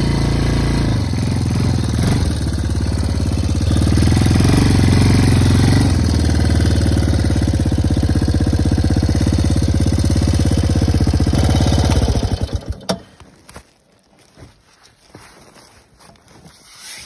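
ATV engine running while the quad is ridden through snow, somewhat louder for a couple of seconds about four seconds in, then shut off about twelve seconds in. After that only faint scattered knocks and rustling remain.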